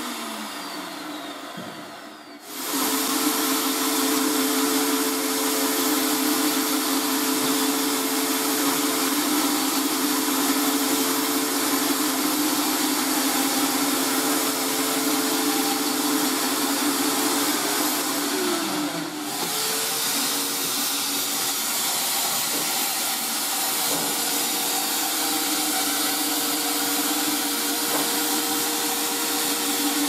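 Portable electric winch motor running steadily under load, a hum with a whine and hiss as it reels in wire rope to pull a car. It winds down to a stop in the first couple of seconds and starts up again, and about two-thirds of the way through it slows with a falling pitch and briefly pauses before running on.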